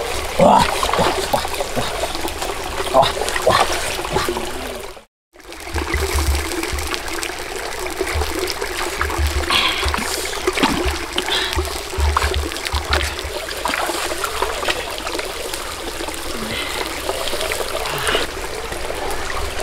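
Shallow stream trickling steadily over rocks, with scattered small knocks and splashes. The sound drops out to silence for a moment about five seconds in.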